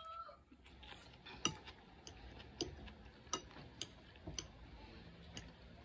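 Faint, scattered clicks of a metal fork tapping and scraping on a plate as food is picked up, about half a dozen in all, over quiet chewing.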